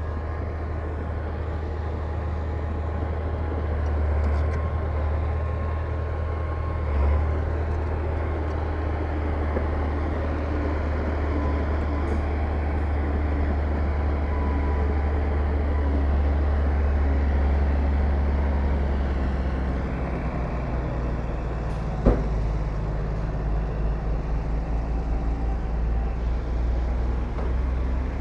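Heavy diesel engine of earthmoving equipment running, a strong low drone. About twenty seconds in its note changes to a pulsing throb, and a single sharp bang comes shortly after.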